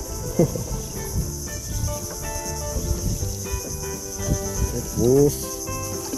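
Insect chorus, a steady high-pitched buzzing trill, with music-like tonal notes underneath.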